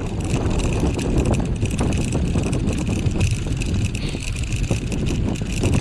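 Four-dog dryland rig rolling fast over a dirt trail: a steady rumble with constant small rattling clicks, and wind buffeting the microphone.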